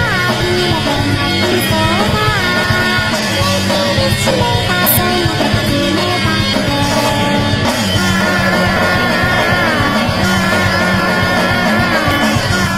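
Loud rock music playing steadily.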